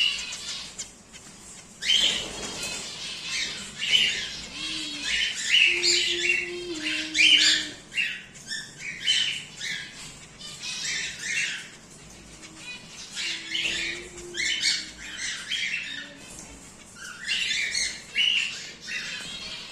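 Cockatiels squawking and chirping in a long string of short, harsh calls. There is a lull just before the calls start about two seconds in, and a quieter stretch in the middle before the calling picks up again near the end.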